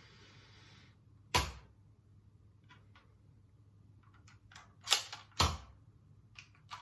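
A few sharp clicks: a brief soft hiss, one sharp click about a second and a half in, then faint ticks and two louder clicks half a second apart past the middle.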